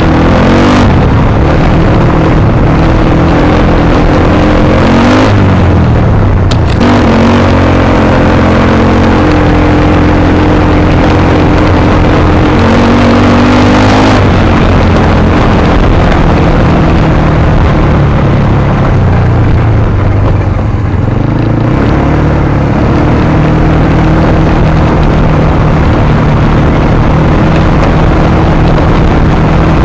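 Off-road vehicle's engine running under way on a dirt track, its pitch rising and falling several times with throttle and gear changes and easing off about twenty seconds in, over a loud, steady rush of road and wind noise.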